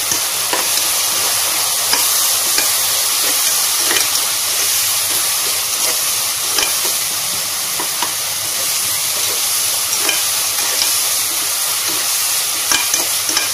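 Onion-tomato masala sizzling in oil in a pressure cooker while a steel spoon stirs it, with irregular clicks and scrapes of the spoon against the pot.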